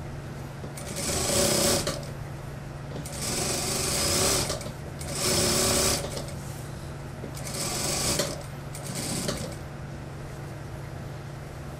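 Industrial single-needle sewing machine stitching through jumper fabric in five short runs of about a second each, stopping and restarting as the fabric is guided, with a steady low hum between runs.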